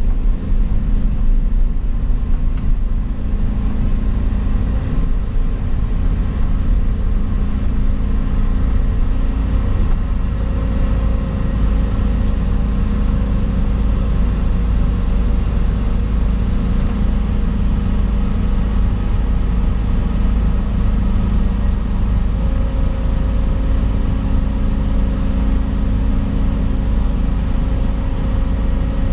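Volvo EC220 excavator's diesel engine running steadily under hydraulic load, a heavy rumble heard from inside the operator's cab. A higher steady whine comes in about ten seconds in and again later as the hydraulics work the boom.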